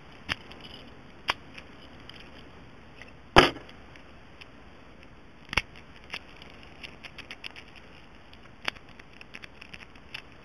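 Small metal padlocks being handled, giving scattered sharp clicks and knocks, the loudest about three and a half seconds in.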